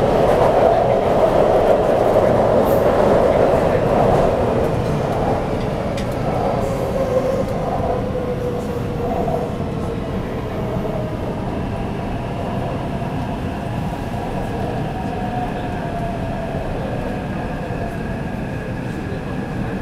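Taipei Metro C381 train with software-modified traction electronics running in the tunnel, heard from inside the car: loud rumble and rail noise that eases off after the first few seconds. Over it a motor whine glides downward, then settles into steady higher tones.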